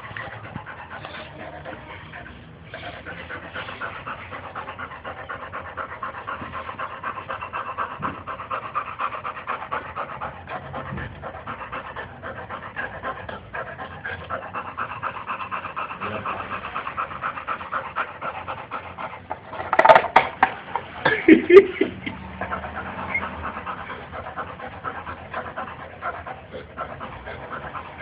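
Boxer dog panting rapidly and steadily, with a short louder burst of sound about twenty seconds in.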